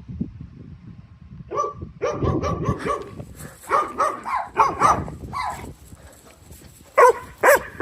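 Belgian shepherd dog barking in a run of quick barks, then two loud single barks near the end. This is alarm barking at a person it takes for a stranger. Wind rumbles on the microphone underneath.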